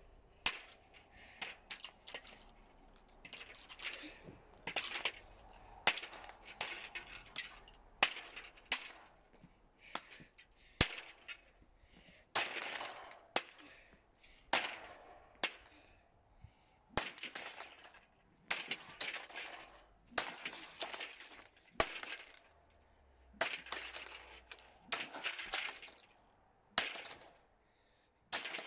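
A stand fan being smashed: repeated sharp cracks, each followed by a short crunching rasp, about one every one to two seconds.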